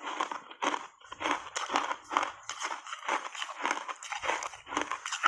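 Reshaped ice coated in matcha powder and milk powder being chewed close to a lapel microphone: a rapid, uneven run of crisp crunches, about three a second.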